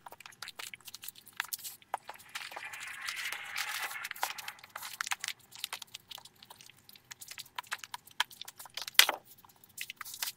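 Cardboard packaging being handled as a white inner box is slid out of its printed cardboard sleeve. There are scattered clicks, taps and scrapes, a longer stretch of cardboard rubbing on cardboard about two to five seconds in, and one louder knock just after nine seconds.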